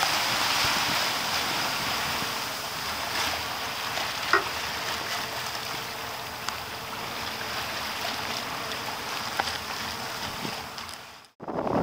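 Steady rush of wind and choppy seawater around a boat, with a faint steady motor hum underneath. The sound drops out briefly near the end.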